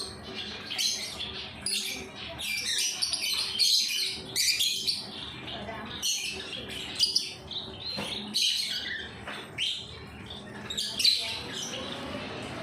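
Pet birds chirping: a steady stream of short, high chirps following one another quickly throughout.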